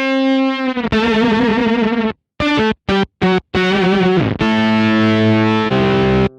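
Distorted electric guitar played through an Eventide H9 multi-effects pedal. Held notes waver in pitch, a run of short notes cuts off abruptly from about two seconds in, and steady sustained notes follow near the end.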